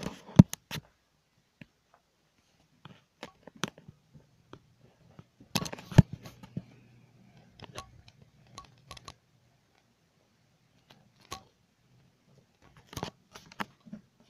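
Handling noise from a handheld camera being moved about: scattered clicks, knocks and rubbing, heaviest at the start, about six seconds in and near the end, with a faint low hum in between.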